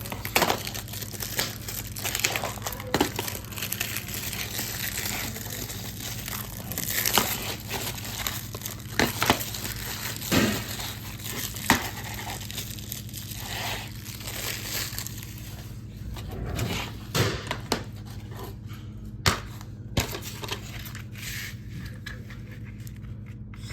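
Plastic shrink-wrap being torn and crinkled off a DVD case, with many sharp crackles and snaps. The crinkling thins out to scattered clicks in the last several seconds.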